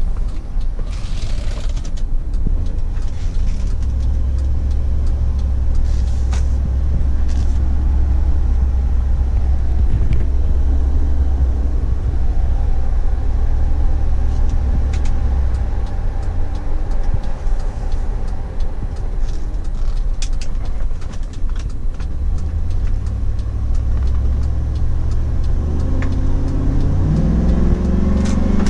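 2004 Chevrolet SSR's 5.3-litre V8 and tyres heard from inside the cabin while driving: a steady low rumble with scattered light clicks and knocks. Near the end the engine note rises as the truck accelerates.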